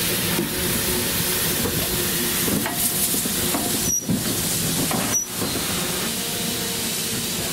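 Steam locomotive hissing steadily over a low rumble, the hiss dipping briefly twice about four and five seconds in.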